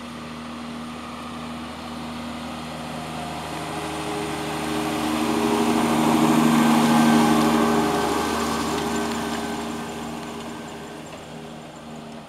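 Holmer Terra Variant self-propelled slurry applicator with a disc harrow driving past: a steady engine note that grows louder as it comes close, peaking about six to seven seconds in, then fades, with a rushing noise over it at the closest point.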